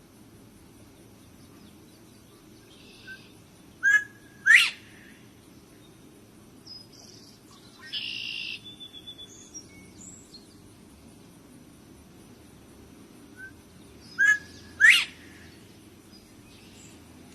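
Partridge calling: a two-part call, a short note followed by a sharp upward-sweeping shriek, given twice about ten seconds apart. A brief buzzy sound comes about eight seconds in.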